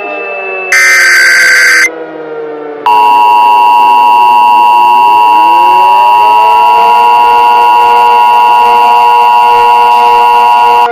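Emergency Alert System broadcast tones. First come the last two bursts of the SAME digital header, each about a second long, ending about two seconds in. Then, from about three seconds in, the two-tone EAS attention signal holds steady and loud for about eight seconds.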